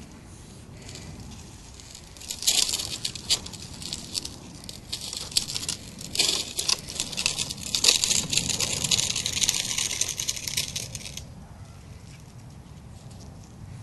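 A dog pushing and rummaging through a dense leafy shrub: leaves and twigs rustle and crackle in quick bursts, starting about two seconds in and stopping abruptly near the end.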